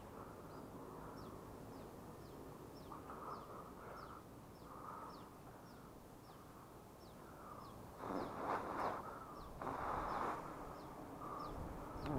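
Leaves and branches rustling and shaking as someone climbs through a tree, loudest around eight and ten seconds in, over a bird repeating a short, high, falling chirp a couple of times a second.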